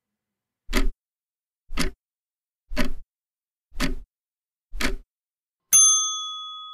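Clock-tick sound effect counting down the time to answer a trivia question: five ticks about a second apart, then a single bell ding that rings out near the end, signalling that time is up.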